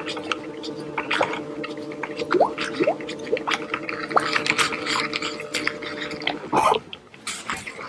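Bow-mounted electric trolling motor humming steadily, cutting off about six and a half seconds in, followed by a louder thump. Light watery splashes and clicks run through.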